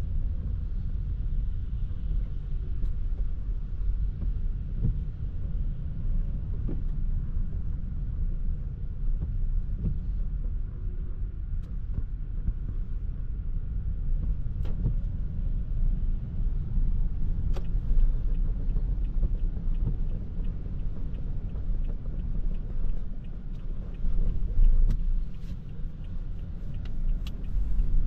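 Toyota Prius α driving on a wet road: a steady low rumble of tyres and road noise, with scattered light ticks that come more often near the end.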